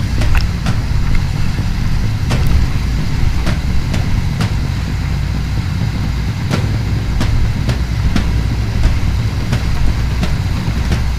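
Whitewater rapids rushing past, heard as a steady, heavy low rumble with a hiss above it, broken by frequent sharp clicks and knocks.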